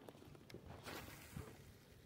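Near silence, broken by a faint click, a short soft rush of noise about a second in, and a low knock just after it.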